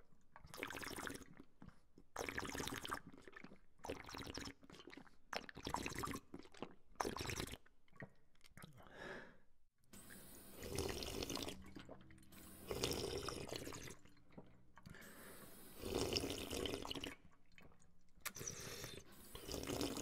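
Someone drinking from a water fountain: the water jet splashes and the drinker sips in repeated bursts about a second long, with short pauses between them. The bursts grow longer in the second half.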